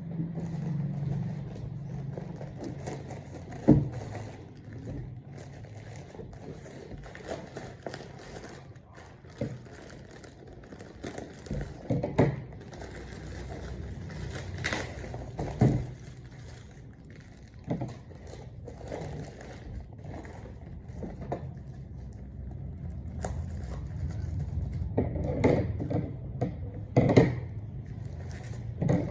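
Parcel packaging being handled and opened by hand: plastic crinkling, scraping and tearing, with scattered sharp knocks and taps over a low steady hum.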